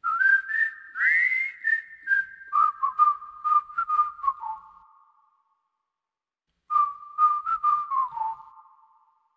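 A whistled melody of short bright notes, some sliding up in pitch, each starting with a light click and ringing on briefly. It stops for about a second and a half in the middle, then picks up again.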